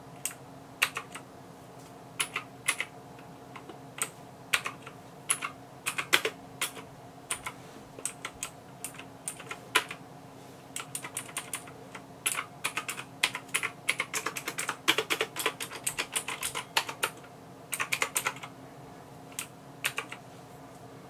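Keys of a MAXTILL TRON G610K mechanical keyboard being pressed: single keystrokes spaced about a second apart at first, then a quick run of clicking keystrokes in the middle, thinning to a few presses near the end, over a faint steady hum.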